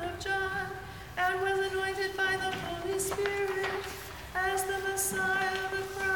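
A woman's voice chanting liturgical text on a single held reciting note, in long phrases with two short pauses.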